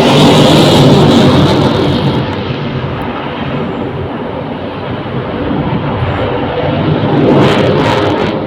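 Military aircraft engine noise passing overhead. It is loudest in the first two seconds, fades, and swells again near the end as another pass comes through.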